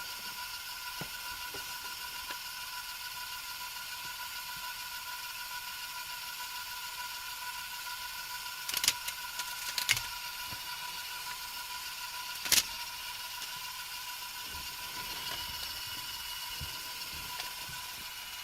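Small electric motor of a LEGO-built ceiling fan running with a steady whine, with a few sharp clicks near the middle.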